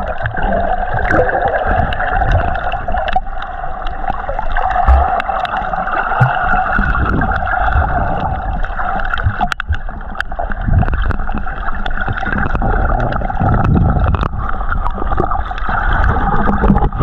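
Underwater sound picked up through a waterproof camera housing: a steady muffled rush of churning sea water with a low rumble and scattered sharp clicks.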